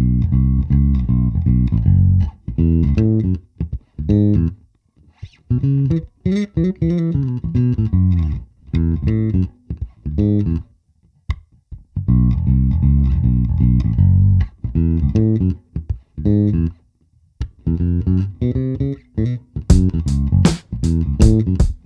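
FOALS FJB7 electric bass guitar played solo: phrases of plucked notes separated by short pauses, with sliding notes about a third of the way in. Near the end come sharp, crisp percussive notes in quick succession.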